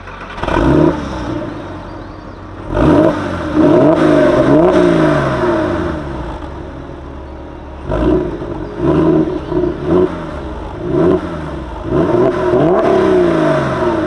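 Porsche 996 Carrera 4S's 3.6-litre flat-six engine revved in a series of throttle blips. Each rev climbs in pitch and falls back, with a longer run of revs over the last couple of seconds.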